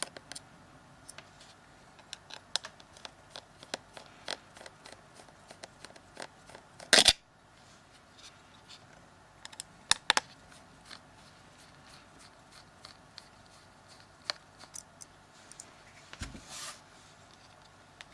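Small Phillips screwdriver undoing the tiny screws around the edge of a Samsung Galaxy S3's plastic frame: scattered light clicks and scrapes of the tool and screws. There is a louder clatter about seven seconds in and sharp clicks about ten seconds in.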